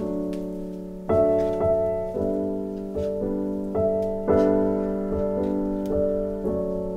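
Background piano music: slow chords and notes struck about twice a second, each ringing and fading before the next.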